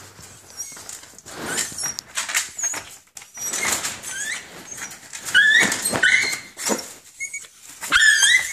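Chihuahuas whining in short, high-pitched cries that rise and fall, coming more often in the second half, with scuffling sounds before them; the whining comes during a mating attempt.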